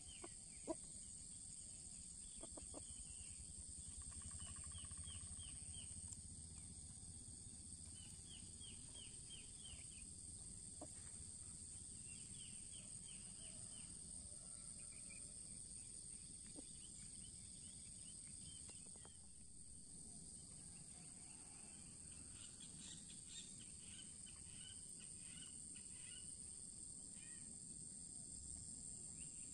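Faint outdoor ambience of a steady high-pitched insect chorus. Short runs of quick repeated bird chirps recur every few seconds, and there is a single sharp tick less than a second in.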